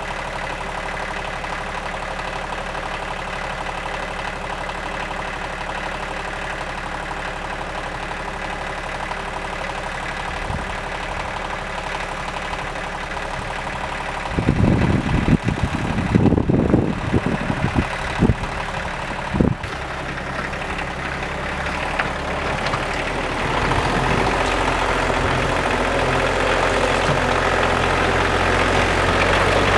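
Loader's engine running steadily. Midway there is a cluster of loud low thumps over several seconds, and the engine gets louder near the end.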